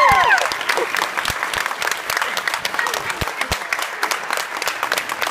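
Crowd applauding steadily. High-pitched cheers and screams die away in the first half-second.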